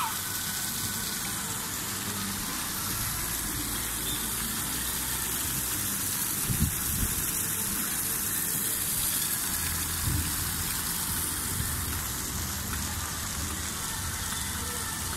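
Water from a pool fountain jet splashing steadily into the pool, a continuous rain-like hiss, with a couple of dull low bumps about six and ten seconds in.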